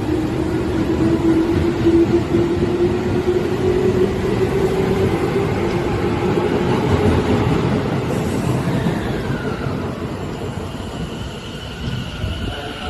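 Tobu 10000 series electric train running, a rumble with a steady motor tone that rises slightly and then fades out. A falling squeal follows about two-thirds of the way through, and high steady tones come in near the end.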